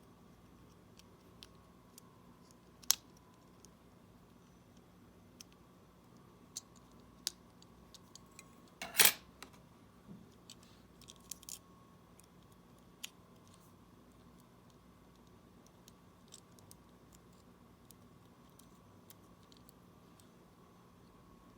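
Sparse small clicks and taps of small tools and parts during the repair of a smartwatch: a sharp click about three seconds in and a louder brief rattle about nine seconds in, with a few fainter ticks around them.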